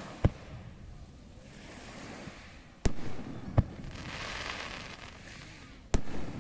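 Fireworks shells bursting: four sharp bangs, one just after the start, two close together in the middle and one near the end, with a rushing hiss swelling and fading between them.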